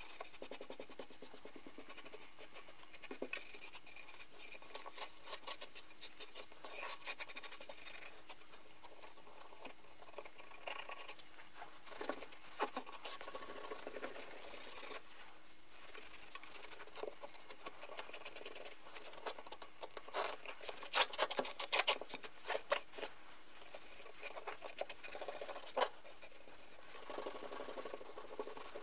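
Terry-cloth towel rubbing over the wooden handle of an 1860s Disston hand saw: a soft, scratchy wiping with scattered light ticks, and a run of sharper clicks about two-thirds of the way through.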